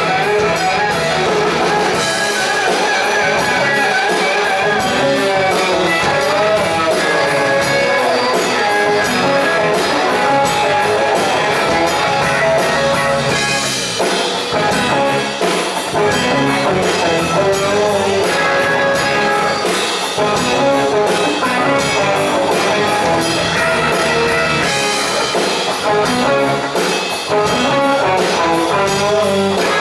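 Live rock band playing loud, with held lead notes over a steady drum beat.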